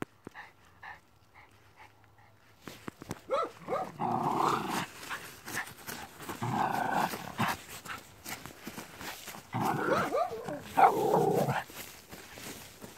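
Dog growling and snarling in three loud bursts of one to two seconds each, starting about three seconds in.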